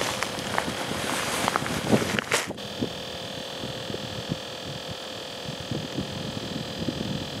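Rustling and light handling noise from a thick snowsuit jacket, with scattered small clicks, for about the first two and a half seconds. Then the rustle stops suddenly and a steady electrical hum is left.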